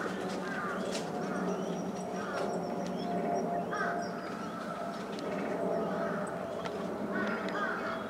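Outdoor pond-side ambience: a steady murmur with a low hum, and short bird calls coming and going every second or two.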